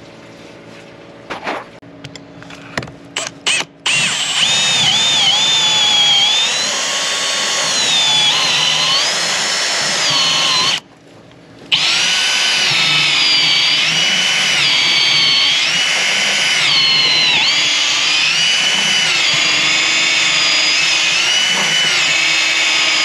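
A few short knocks, then a power drill running at varying speed, its whine rising and falling as the trigger is worked. It stops for about a second midway, then runs on.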